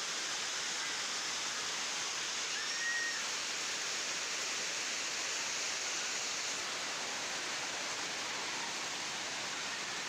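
Waterfall rushing, a steady even hiss of falling water, with one faint short chirp about three seconds in.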